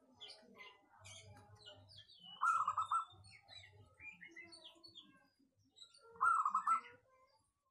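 Zebra dove cooing in two short phrases of rapid, staccato coo notes, about two and a half seconds in and again near the end. This is a local perkutut kept as a lure bird for its crisp, full voice. Smaller birds keep up faint high-pitched chirping throughout.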